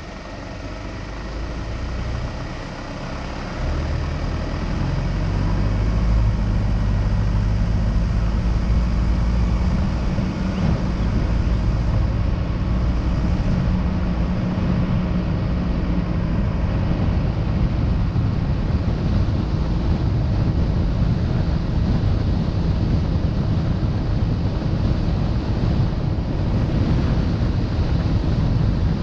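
Wind rumbling over the microphone of a camera moving along a road, with a low road-and-vehicle rumble. It grows louder over the first few seconds as the camera picks up speed, then holds steady.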